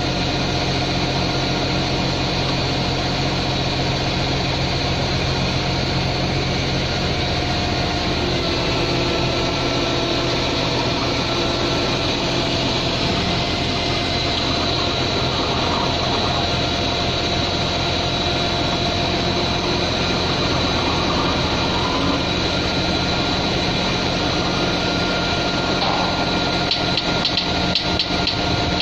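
Vehicle engine idling steadily, with a few light metallic ticks near the end.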